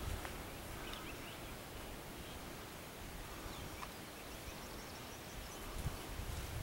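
Faint outdoor ambience with a few short, distant bird chirps, and low bumps on the microphone near the end.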